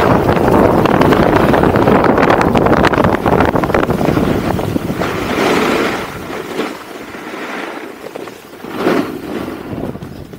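Wind buffeting the camera microphone during a fast ski-slope descent. It is a loud, steady rush that eases off about six seconds in, with two short swells, the second near the end, as the rider turns through the snow.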